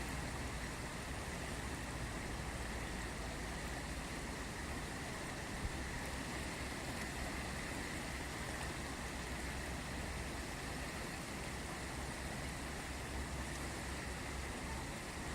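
The Ganges river flowing: a steady rushing of water, with a low rumble underneath.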